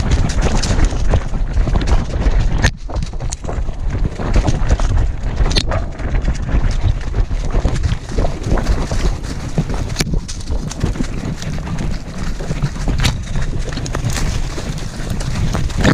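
A dog running hard through dry leaf litter and brush, heard from a camera strapped to its back: quick, rhythmic paw strikes, crunching leaves and snapping twigs, over heavy rumbling from the camera being jolted.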